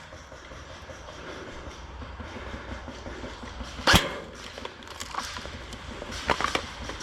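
Airsoft gun shots: one loud sharp crack about four seconds in and a few quieter cracks near the end, over steady rustling and movement noise.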